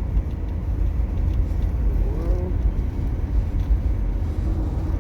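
Steady low rumble of road and drivetrain noise heard inside the cabin of a 2006 Toyota Prius on the move.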